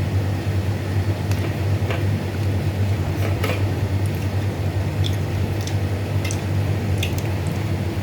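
A steady low machine hum, with a few faint, light clicks scattered through it.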